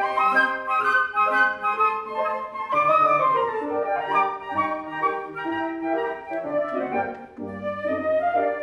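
Three concert flutes playing a melody in harmony, with a C. Bechstein grand piano accompanying. The notes are short and change quickly.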